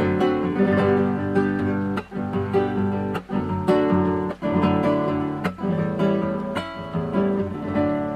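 Instrumental passage of a sung folk song: acoustic guitar strummed in a steady rhythm, with accented strokes about once a second and no voice.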